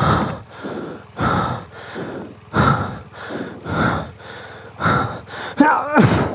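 A person breathing hard after exertion, with a loud breath about every second. There is a short voiced sound near the end.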